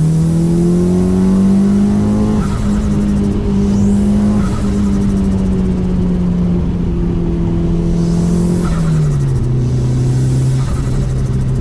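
Mitsubishi Lancer Evolution VI's turbocharged 2.0-litre four-cylinder engine running under load. Its note rises over the first couple of seconds, holds steady, then drops about nine seconds in and settles lower.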